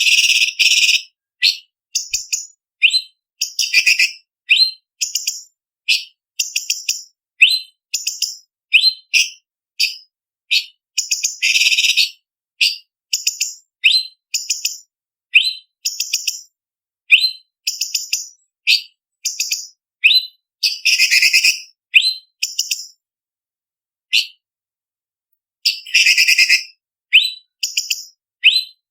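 Orange-bellied leafbird (cucak cungkok) singing a fast, varied run of short, sharp whistled notes, broken by a few longer rattling trills. The song pauses for a few seconds near the end, with one lone note, then resumes with a trill.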